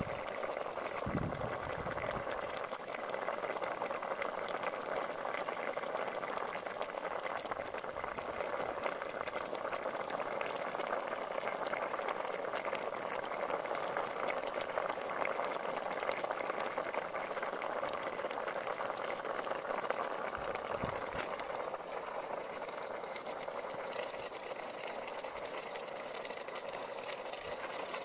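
Fish soup with lemongrass and chili boiling in a large pot on a gas burner: a steady bubbling crackle.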